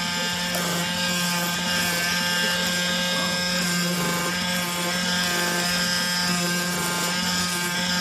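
CNC oscillating knife cutting machine running while it cuts and creases corrugated cardboard: a steady electric hum with a high hiss, and short higher tones coming and going as the head moves.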